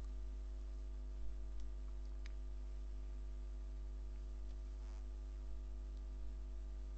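Steady low electrical hum with faint hiss, and a few faint clicks in the first two or three seconds.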